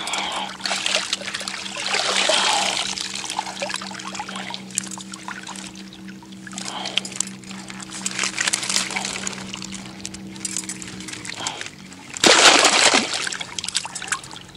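Water splashing and trickling through a mesh keepnet as it is dipped and shaken in the river shallows to release a catch of small white bream, with a louder splash about twelve seconds in. A faint steady hum runs underneath and stops about eleven seconds in.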